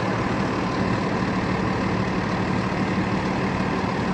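Dump truck engine idling steadily, a constant low hum heard from inside the cab.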